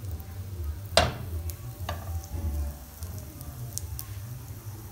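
Chocolate chip pancake batter frying in a hot non-stick pan with a faint, steady sizzle over a low hum. A sharp click about a second in and a smaller one just before two seconds.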